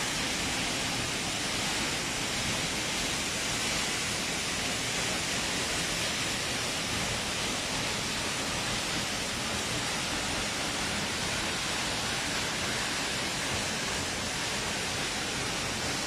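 Wildensteiner Wasserfall, a 54 m free-falling waterfall, pouring into its plunge pool: a steady, even rushing hiss.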